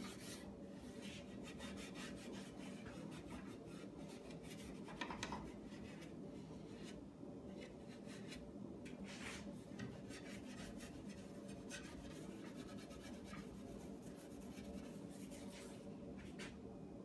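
Pad of 0000 steel wool with beeswax polish rubbing over an oak chair's seat and spindles: faint, irregular scratchy strokes.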